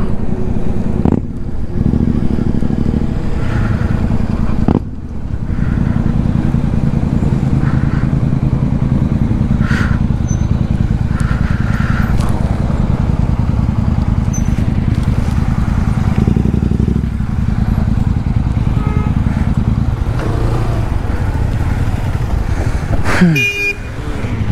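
Motorcycle engine running steadily at low revs, with a short drop in pitch near the end.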